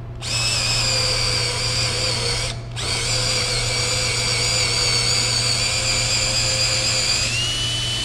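Cordless drill spinning an SP78PL coax prep tool on the end of 7/8-inch plenum coaxial cable, cutting back the cable end. A steady whine pauses briefly about two and a half seconds in, runs again, and rises slightly in pitch near the end before stopping.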